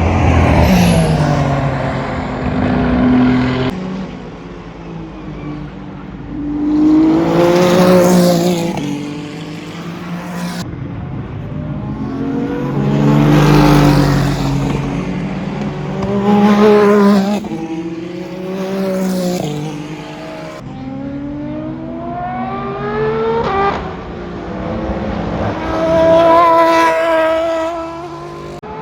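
Endurance race cars passing at speed one after another, about eight pass-bys. Each engine note swells and then drops in pitch as the car goes by, with abrupt cuts between the separate trackside clips.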